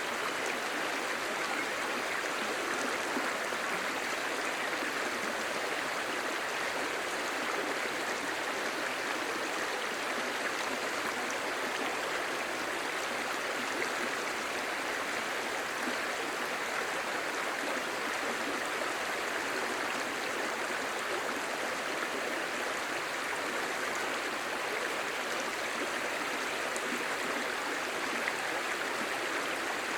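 Clear shallow stream babbling steadily over stones.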